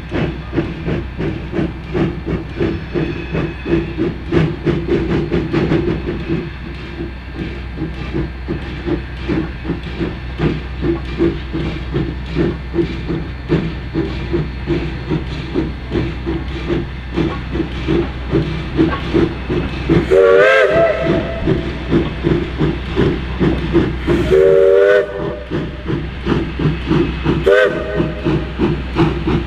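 Flagg Coal #75, an 0-4-0 tank steam locomotive, working a passenger train with a steady beat of exhaust chuffs. Its whistle sounds three times near the end, long, long, then short, the opening of the grade-crossing signal as it approaches a road crossing.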